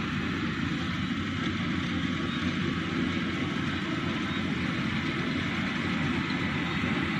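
Yanmar 82V rice combine harvester running steadily as it cuts rice.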